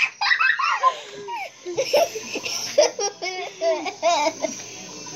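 Laughter and giggling in short, repeated bursts, dying away about four and a half seconds in.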